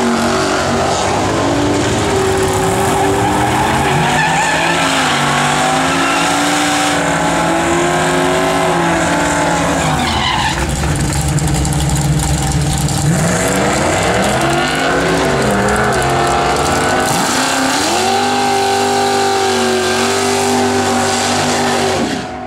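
Supercharged Ford pickup's V8 revving hard during a tyre-smoking burnout, with tyre squeal, the revs rising and falling again and again. About two-thirds of the way in the revs sweep up and down, then from about 17 seconds an engine holds a steady high rev down the drag strip before dropping away just before the end.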